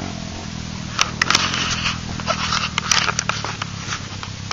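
An engine idling steadily, with irregular scraping and crackling noises starting about a second in.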